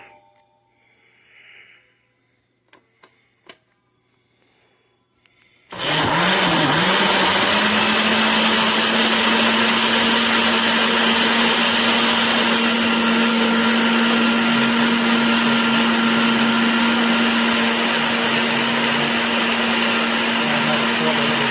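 A few soft clicks, then about six seconds in a countertop blender starts abruptly and runs steadily, its motor holding a constant pitch, blending milk, ice cream and chocolate syrup into a milkshake.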